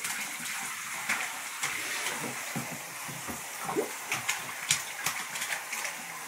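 Bath water splashing as a toddler sweeps and slaps it with his hands: a string of short sharp splashes over a steady watery hiss.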